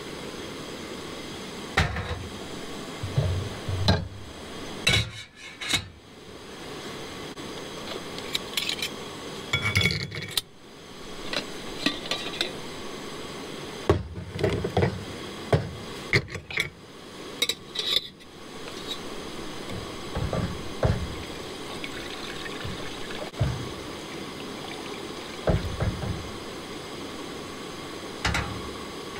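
Stainless steel camp pots and cups and plastic mugs being handled, with scattered clinks and knocks as they are picked up and set down on a camp stove and tailgate.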